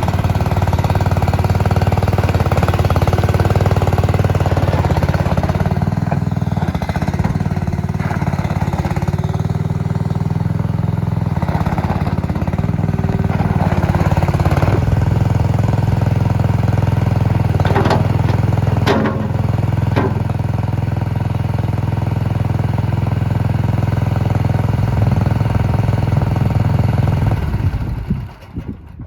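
Engine of an AGT SDA-140W mini skid steer wheel loader running steadily, with a few sharp knocks about two-thirds of the way in. The sound drops away just before the end.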